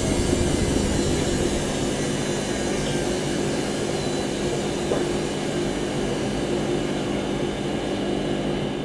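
Washing machine on its spin cycle, the drum spinning at speed: a steady mechanical hum with a few held low tones.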